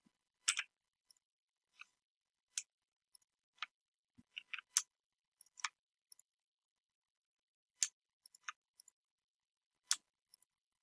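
Computer mouse button clicking: about a dozen and a half short, sharp clicks at irregular intervals, some in quick runs of two or three.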